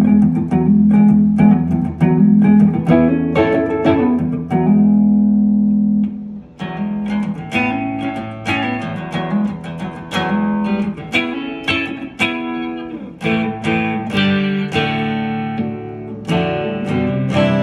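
Guild S-70 electric guitar, fitted with a DiMarzio bridge pickup and a Duncan neck pickup, played through an amplifier: a run of picked notes and chords, each left to ring, demonstrating the tones of its pickups.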